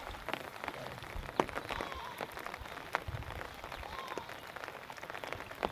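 Irregular small splashes and drips of water.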